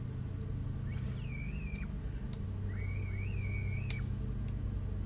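A Mobula 6 tiny whoop's brushless motors buzzing with a low hum and twice giving a high wavering whistle, the first dropping sharply from very high, as they twitch without spinning up. The owner puts this down to the radio's throttle sitting at 1016 instead of 1000.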